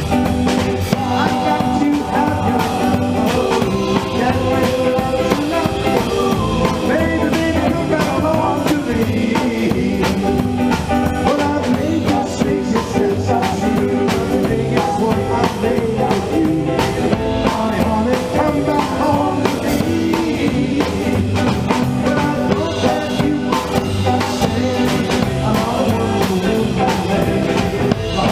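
Live rock-and-roll band playing, with drum kit and electric guitar, and voices singing over it.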